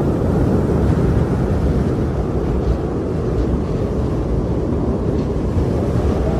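Strong wind blowing steadily, a dense rushing noise that is heaviest in the low range and holds an even level.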